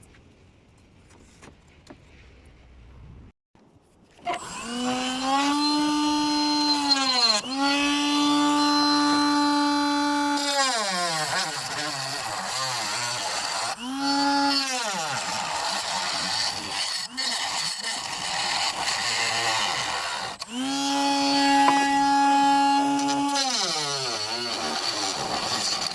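Faint at first, then a small electric power tool starts about four seconds in and runs in several bursts. Each burst speeds up to a steady high hum, holds, and winds down, with rougher noise between the bursts.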